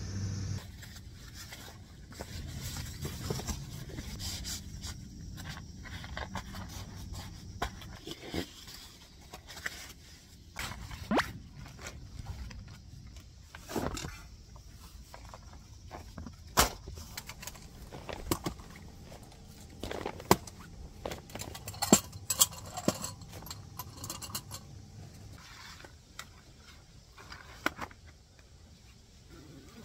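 Irregular clicks, knocks and scrapes of objects being handled, with the sharpest knocks a little past the middle.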